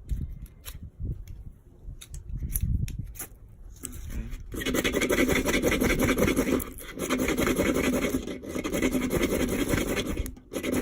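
Low rumble of wind on the microphone with a few small clicks, then, about four seconds in, loud rasping rubbing strokes of about two seconds each with brief breaks between them.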